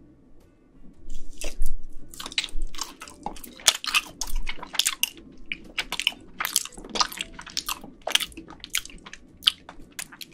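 Close-miked biting and chewing of a sheet of rolled ice cream made from frozen Boca pudding. Quiet for about a second, then wet mouth sounds with many quick, sharp clicks and smacks.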